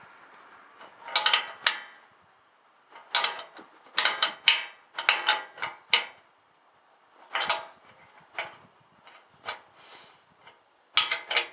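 Metal hand tools clicking and clinking on the tractor's exhaust fittings during the muffler refit, in several short runs of rapid clicks with pauses between.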